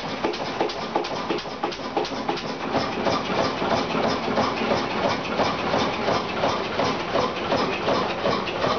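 1948 Duvant RF horizontal stationary engine with a large flywheel running steadily, beating out an even rhythm of knocks, several a second.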